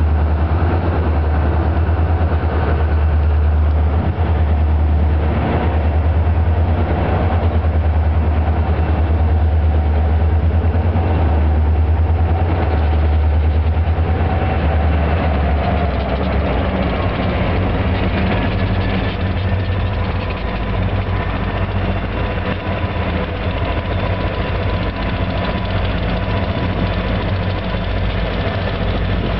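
Diesel-electric locomotives leading a freight train, engines running with a heavy, steady low drone as they approach and pass close by.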